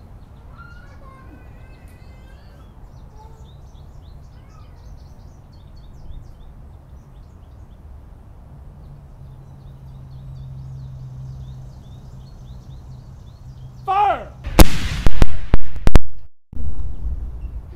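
Civil War muzzle-loading field cannon firing a black-powder charge: one very loud blast about fifteen seconds in, loud enough to overload the recording, with its rumble rolling on afterwards. A short shout comes just before the shot, and faint birdsong is heard earlier.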